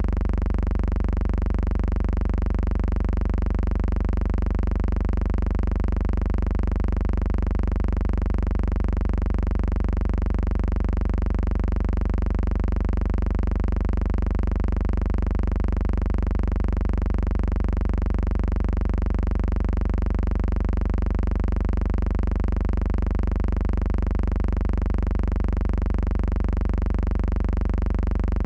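A steady, unchanging low hum made of several constant tones at once, with a slight regular pulsing in loudness and no change at all.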